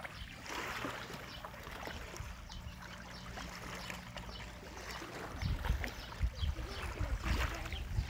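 Lake water lapping and splashing against a concrete seawall, with a faint steady hum throughout. From about two-thirds of the way in, irregular low rumbling bumps become the loudest sound.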